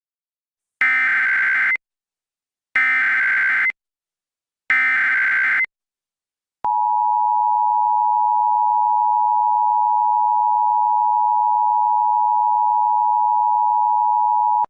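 Emergency Alert System (SAME) header: three digital data bursts about a second long each, one second apart, each a harsh rapid warble of high tones. These are followed by the steady two-tone EAS attention signal, held for about eight seconds.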